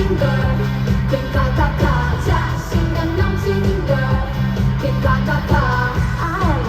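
A K-pop song performed live through a concert PA: sung vocals over a heavy, steady bass beat.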